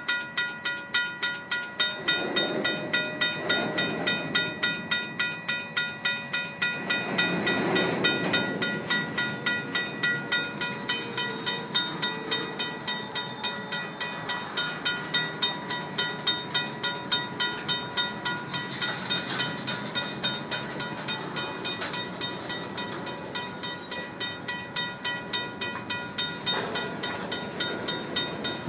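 The crossing's RACO mechanical bell ringing steadily at about two and a half strokes a second, each stroke ringing on. Under it, the wheels of loaded covered hopper cars rumble and clatter on the rails, swelling now and then as trucks roll past.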